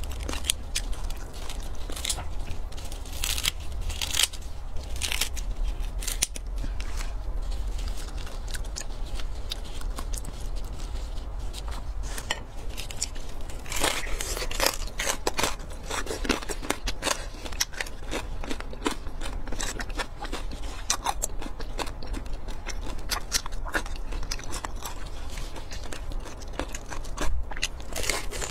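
Kitchen scissors snipping through the crackling crust of crispy roast pork belly, then close-up crunching as the crust is bitten and chewed. Sharp crackly snaps come thick and fast throughout.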